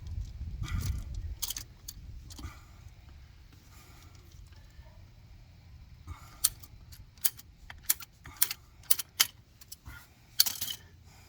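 A hand PEX pipe cutter cutting a thin sliver off PEX tubing: a low rustle of handling at first, then a series of sharp clicks and snips in the second half.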